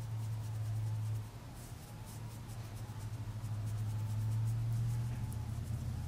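Faint soft scratching of a flat shader brush patting and sweeping eyeshadow over the eyelid, under a steady low hum.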